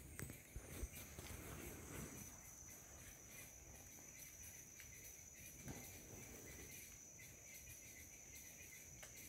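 Faint insects singing: a steady high-pitched trill with a weaker, lower buzzing band beneath it. A few soft knocks come in the first second.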